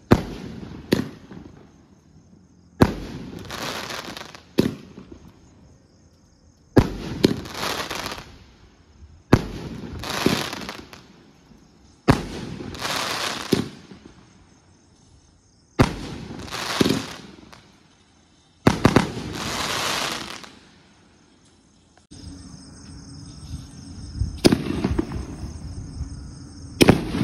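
A cake of 2-inch canister shells firing one shell at a time, about ten shots spaced two to four seconds apart. Each shot is a sharp report followed by about a second of crackling hiss as the shell breaks.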